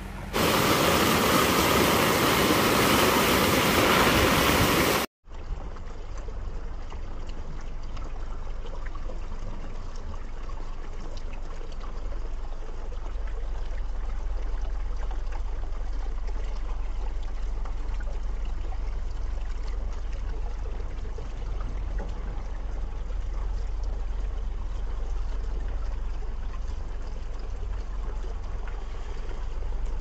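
Heavy rain hissing loudly for about the first five seconds, then, after a sudden cut, muddy runoff trickling over bare, soaked ground with a low rumble underneath.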